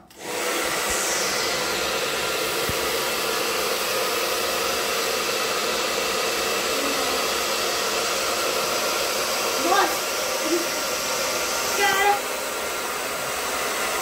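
Hand-held hair dryer switched on and blowing steadily, its motor and fan giving an even rush of air with a faint steady whine. A few short voice sounds come in near ten and twelve seconds, and the dryer gets a little quieter just after the second.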